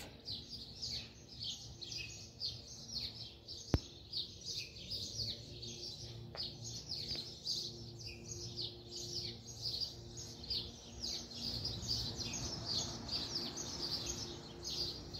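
Birds chirping continuously in a busy run of short, high, downward-sliding chirps, several a second. A single sharp click about four seconds in.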